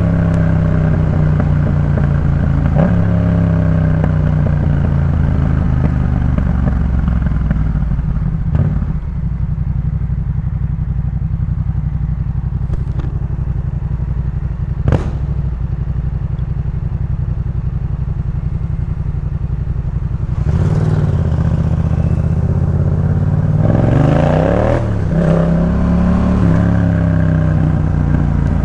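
Yamaha MT-07's 689 cc parallel-twin engine through a Jeskap K4 full aftermarket exhaust, with the revs rising and falling while riding. It settles to a steady low note for about ten seconds from around nine seconds in, then revs up hard through rising and falling pitch in the last third. A few sharp clicks sound in the middle.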